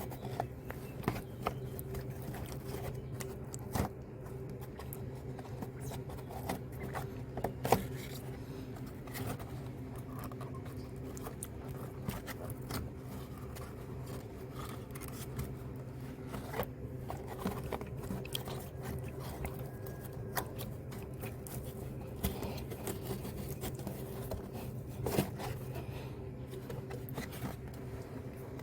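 Hand work on engine parts: scattered light clicks and scrapes of plastic and foam pieces being handled and pulled off around the fuel injectors, over a steady low background hum.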